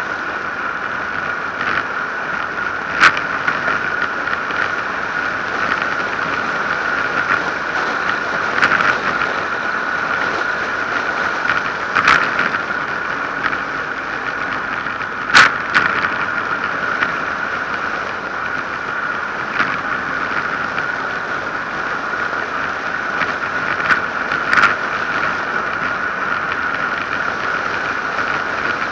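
Steady rush of wind and road noise on a bike-mounted action camera during a fast road-bike descent, with a few sharp knocks as the bike jolts over bumps in the tarmac.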